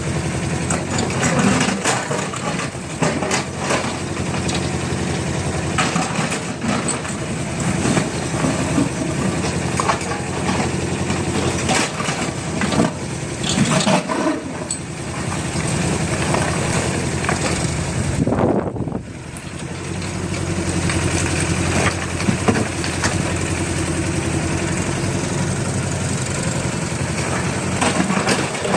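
TMX 20 excavator's diesel engine running steadily, with repeated crunching and knocking as the bucket digs and scrapes through soil and rock. The engine sound drops briefly about two-thirds of the way through, then picks up again.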